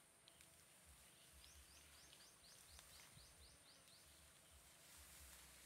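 Near silence, with a faint bird call: a quick run of about ten short, rising high chirps, about four a second, lasting a couple of seconds, over a steady faint high hiss.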